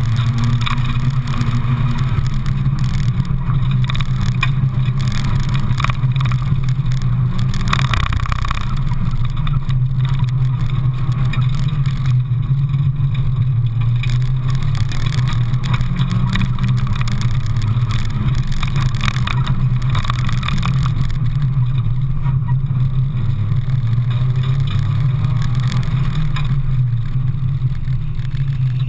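Mazda Miata's four-cylinder engine driven hard, its pitch rising and falling again and again as the car accelerates and slows through an autocross course, heard from inside the open cockpit.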